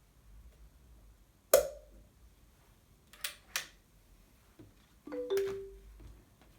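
Objects being handled in a small room: a loud sharp click or clink with a brief ring about a second and a half in, two lighter clicks a couple of seconds later, and a short squeaky tone near the end.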